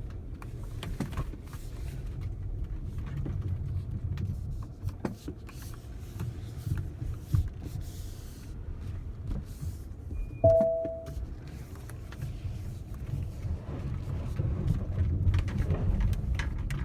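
Inside the cabin of a Tesla Model S P85D driving through snow: a steady low rumble of tyres and road, with scattered small clicks and knocks. About ten seconds in, a short two-tone electronic chime sounds.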